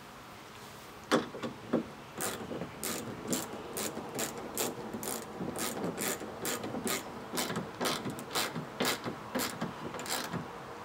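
A hand ratchet clicking in a steady run of strokes, about two clicks a second, as the mounting screws of a kayak landing-gear bracket are tightened down into the plastic hull. A single sharp knock comes about a second in.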